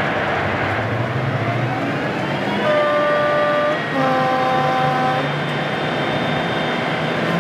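Class 55 Deltic locomotive's two-tone horn sounded from inside the cab: a high note for about a second, then a lower note for about a second, over the steady running noise of the moving locomotive.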